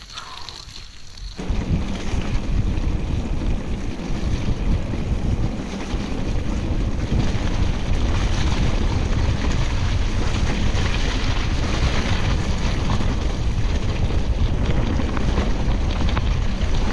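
Wind buffeting the microphone of a camera carried on a moving mountain bike, a loud, steady rushing rumble that starts suddenly about a second and a half in.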